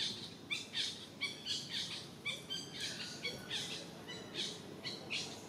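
A rapid series of short, high-pitched chirping calls, about two to three a second, several of them sliding down in pitch.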